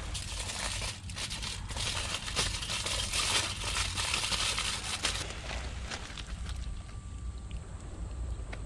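Aluminium foil crinkling and crackling as a fish is wrapped in it by hand, a dense run of small crackles for about four seconds that then dies down to quieter handling.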